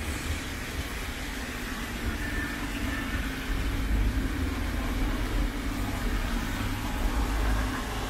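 Road traffic on a city street: a vehicle engine running with a steady low hum, louder from about three and a half seconds in until near the end, over a steady hiss of heavy rain.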